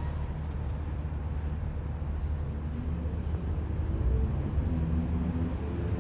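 Steady low rumble of road traffic, with a faint engine hum swelling a little in the second half.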